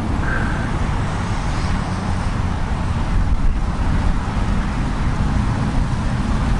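Wind buffeting an outdoor microphone: a steady noisy rush with a heavy low rumble.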